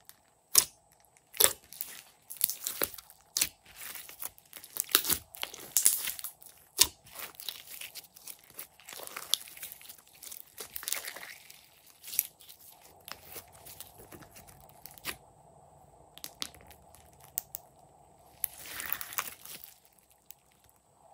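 Slime being pressed and squeezed by hand: a run of sharp sticky clicks, pops and crackles, dense for the first half and sparser after, with a short burst of crackling near the end.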